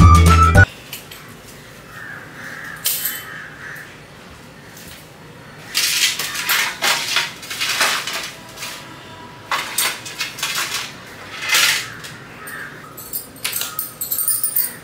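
Irregular bursts of scraping and clattering from household things being handled and moved, in several clusters with quieter gaps between.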